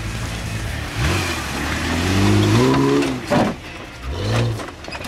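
Jeep Wrangler engine revving under load off-road, its pitch climbing for about two seconds and then dropping, with a second, shorter rev near the end. A sharp thump comes about three seconds in.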